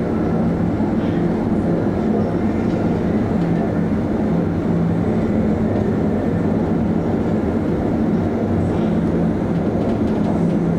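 Steady drone of the ro-ro ferry Maersk Anglia underway: a constant low engine hum under an even rushing noise.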